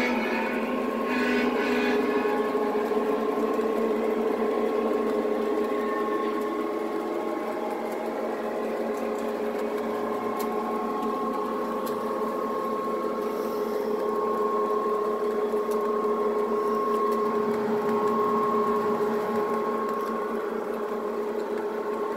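Lionel O-gauge model train rolling past on three-rail track: a steady whirring hum of metal wheels on the rails, with a few steady tones running through it.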